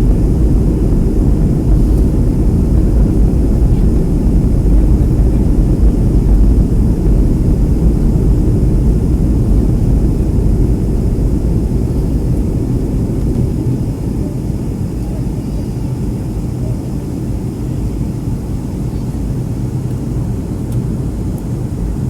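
Steady jet engine and airflow rumble heard inside the passenger cabin of a Boeing 757 on its descent to land, easing a little about halfway through.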